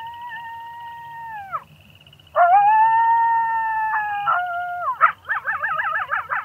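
Coyote howling: two long, steady howls that drop away at the end, followed about five seconds in by a quick run of wavering, quavering yips.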